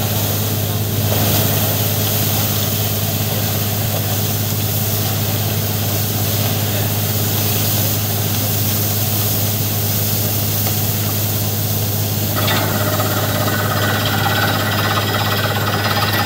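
Borewell drilling rig's engine and air compressor running steadily with a strong low drone and a broad rushing hiss, as compressed air lifts muddy water and cuttings out of the well during development. About twelve seconds in, a higher mechanical tone joins.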